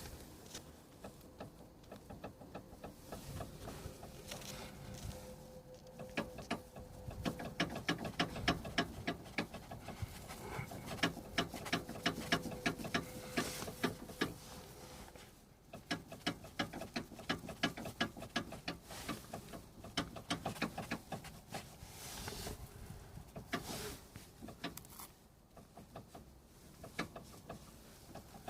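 Anti-roll bar bushings and stabilizer end links knocking in a car's suspension: long runs of rapid rattling knocks with a short lull about halfway through. The knocks are the sign of worn stabilizer bushings and links.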